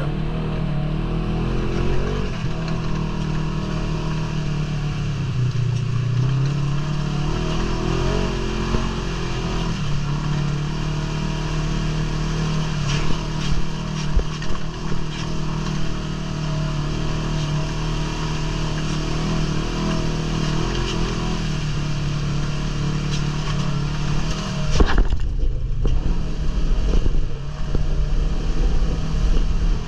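ATV engine running while driving over rough ground, its pitch rising and falling with the throttle, with some rattling in the middle and a sudden knock near the end.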